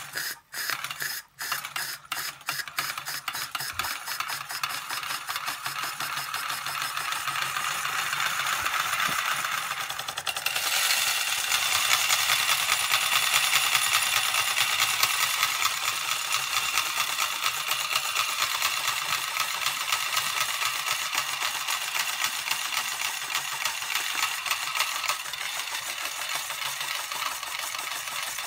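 L.J.S.M. toy oscillating steam engine running under load. Its separate exhaust strokes quickly speed up into a rapid, continuous chuffing clatter. With it comes the rattle of a belt-driven tin toy, whose loose pieces tumble inside a spinning drum; the sound grows louder about ten seconds in.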